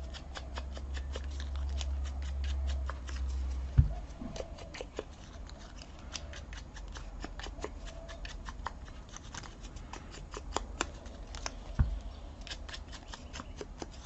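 Quick, irregular light clicking of a sponge ink dauber being dabbed around the edges of die-cut paper flowers, several dabs a second, with a sharper knock at about four seconds in and again near twelve seconds.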